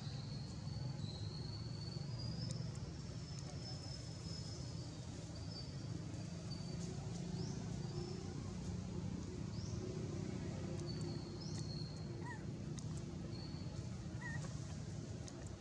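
Forest ambience: a steady low hum under thin, high-pitched animal calls, with a few short rising chirps about halfway through.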